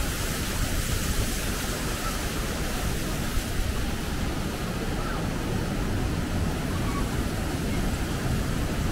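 Wapama Falls' water rushing steadily down over the rocks, a dense constant noise of falling water.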